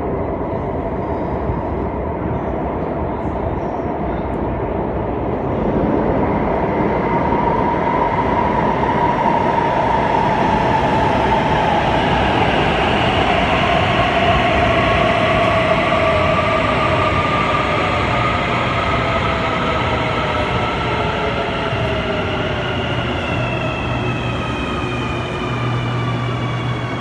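Alstom AS-14 metro train running into the platform, its wheels rumbling on the rails and its electric traction drive whining in tones that glide down and up. The sound gets louder about six seconds in, as the cars pass close, and fresh falling whines start near the end.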